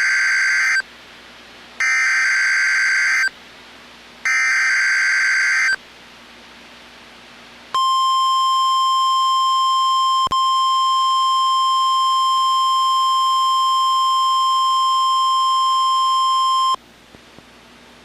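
NOAA Weather Radio emergency alert test signal: three bursts of warbling SAME data tones, each about a second and a half long with short gaps, then the steady 1050 Hz warning alarm tone held for about nine seconds with a brief dropout early on, followed by faint radio hiss.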